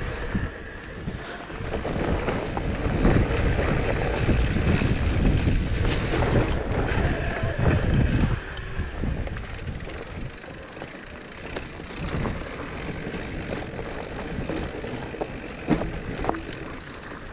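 Mountain bike rolling over a rough trail, with wind buffeting the microphone and the tyres and bike rattling. It is loudest from about two to eight seconds in, with a sharp knock near the end.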